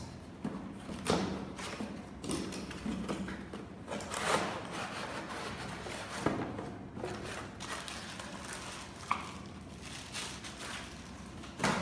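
Cardboard box being opened by hand: flaps pulled open and rustling, a cardboard insert slid out, with several sharp knocks and scrapes of cardboard.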